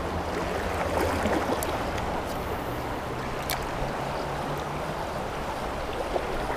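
Shallow, fast-flowing river rushing steadily over stones and weed beds, with one short sharp click about halfway through.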